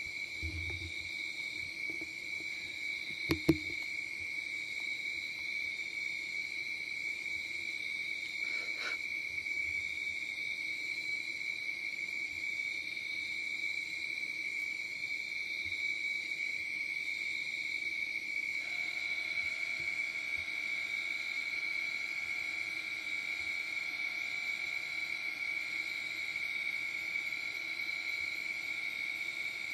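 Night insects trilling steadily at a high pitch, with a lower steady hum beneath. Two sharp clicks come about three and a half seconds in.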